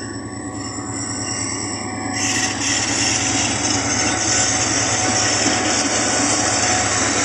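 Pakistan Railways diesel locomotive hauling a container freight train past at close range, its engine running with a steady low drone. The noise swells about two seconds in as the locomotive draws level and stays loud as it passes.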